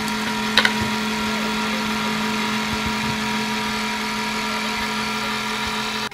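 A steady, engine-like mechanical hum, with a brief sharp clack about half a second in.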